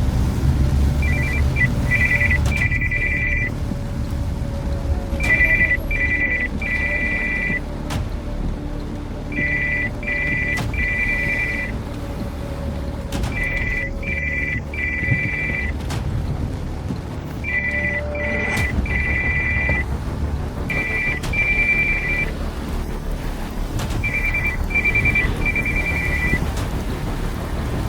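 Phone ringtone ringing: short groups of three two-tone beeps, repeating about every four seconds. Under it is the steady low rumble of the car driving.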